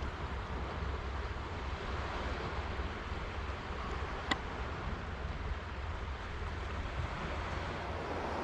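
Sea surf washing steadily on the shore, with wind rumbling on the microphone. A single sharp click about four seconds in.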